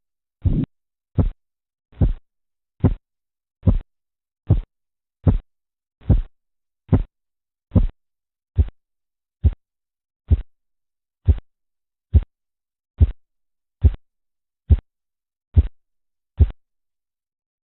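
Korotkoff sounds heard through a stethoscope over an artery as the blood pressure cuff deflates: a regular series of short, low thumps with the pulse, about one every 0.8 seconds. They stop about a second before the end, and that disappearance (phase V) marks the diastolic pressure.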